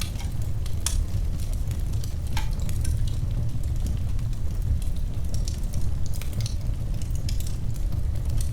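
Wood fire crackling in a fireplace: scattered sharp pops and snaps at irregular intervals over a steady low rumble.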